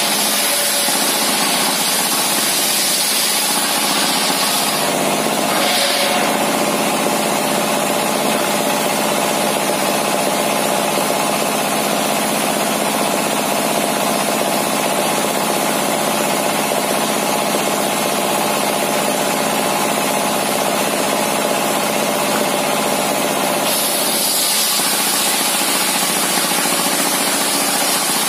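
Diesel-engine-driven homemade table circular saw ripping a large wooden beam. The high hiss of the blade in the wood fades about five seconds in, leaving the engine and spinning blade running steadily, then comes back near the end as the cut resumes.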